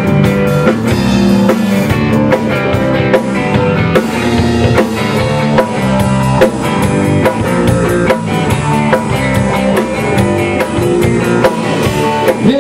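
Rock band playing an instrumental passage between verses: drum kit keeping a steady beat under electric guitar and bass guitar.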